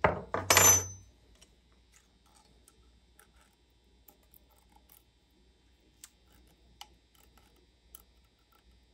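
Metal hand tools clinking while an exhaust valve's clearance is set: a loud clattering clank with a bright ring in the first second, then a few faint ticks.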